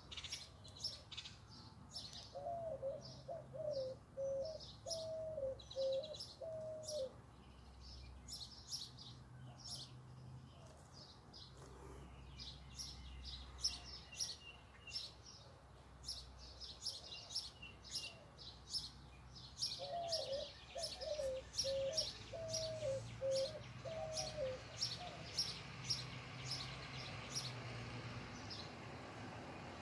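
Wild birds chirping: many short, high chirps throughout, with a lower call of about six short wavering notes heard twice, a couple of seconds in and again about twenty seconds in.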